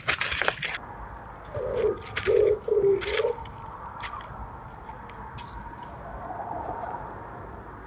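A pigeon cooing four low notes in a row. Before it, a loud crackling rustle cuts off abruptly under a second in; a few faint clicks follow the cooing.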